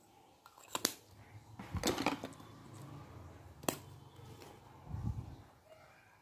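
Lipstick tubes being handled, with a few sharp clicks as the clear plastic cap comes off a lipstick and rustling knocks in between.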